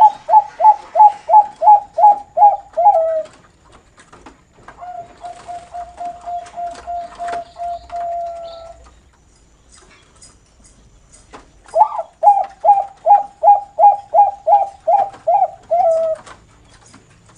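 Zebra dove (Bangkok-strain perkutut) singing in the noklak style: a run of short, quick coo notes, about three a second, ending in a lower note, then a quieter long drawn-out rolling coo, and after a pause a second run of quick coos ending low.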